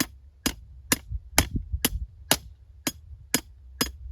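A hammer striking a fence post being driven into the ground: a steady run of sharp blows, about two a second.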